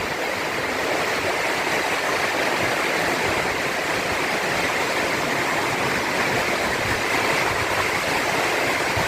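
Heavy rain falling in a storm: a steady, even hiss of downpour that does not let up.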